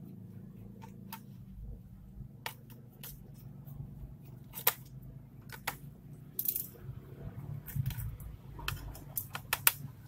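Small screwdriver clicking and scraping on the screws and metal hard-drive bracket of an Asus A43S laptop as the screws are undone. Scattered sharp ticks, coming thicker near the end, over a faint low hum.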